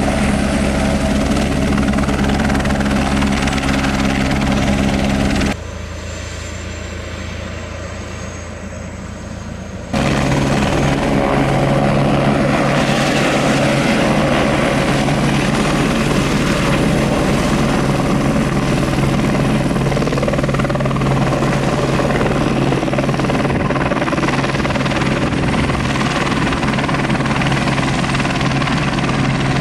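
Eurocopter AS350B3 Écureuil (H125) single-engine turbine helicopter running on the pad with its rotor turning, then hovering off and flying away, with a steady throb. The sound drops suddenly about five seconds in and comes back louder about ten seconds in, staying steady to the end.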